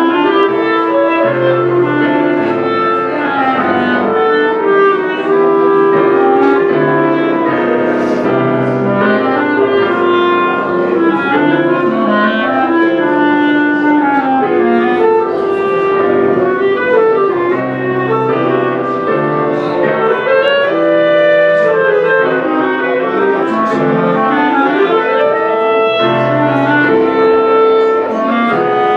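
Clarinets playing a melody together with piano accompaniment.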